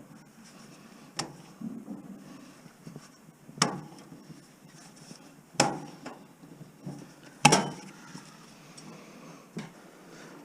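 Sharp knocks and clanks of hand work on building debris in a small room: four loud hits about two seconds apart, with lighter clatter between.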